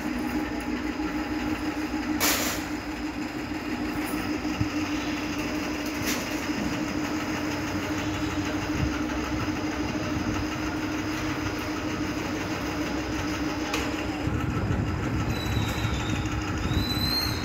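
A steady mechanical hum and rumble, with a sharp click about two seconds in; the rumble grows a little louder near the end.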